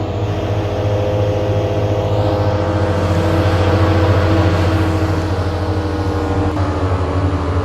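Electric split air conditioner running under test: a steady mechanical drone with a strong low electric hum and several steady overtones.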